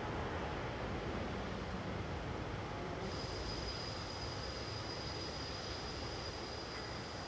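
Boeing 787-8 airliner's Rolls-Royce Trent 1000 engines at low thrust as it rolls slowly on the runway after landing: a steady noise that slowly gets quieter. A thin, high, steady whine joins about three seconds in.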